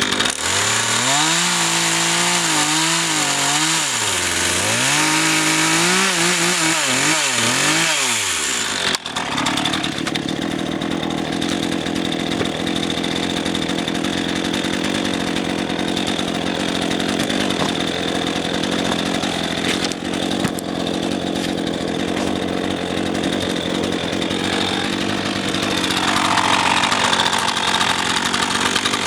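RedMax GZ400 two-stroke chainsaw running at high revs while cutting oak logs. Its engine speed rises and falls repeatedly for the first several seconds, then holds steady from about nine seconds on.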